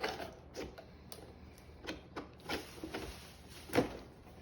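Funko Pop packaging being handled: irregular clicks, taps and short rustles, with the loudest knock near the end.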